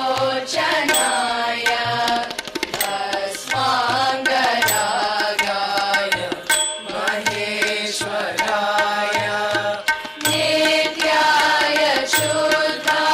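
A group of girls singing a devotional song together, with a drum beating a steady low rhythm underneath.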